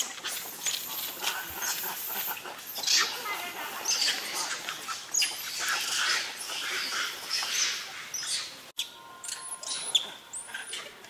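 Macaques screaming and shrieking in a scuffle around a python, many high, irregular calls overlapping. About three-quarters of the way through the sound cuts off suddenly and gives way to quieter high chirps.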